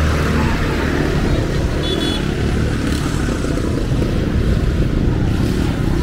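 Busy street traffic noise, with motor vehicle engines running close by in a steady low rumble. A brief high tone sounds about two seconds in.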